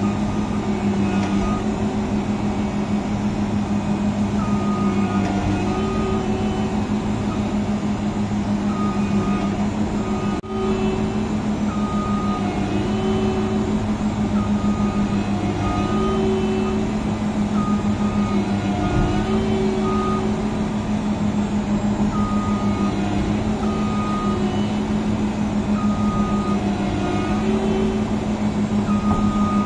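Heavy farm machinery engine running steadily under load, with short high beeps coming and going over the drone.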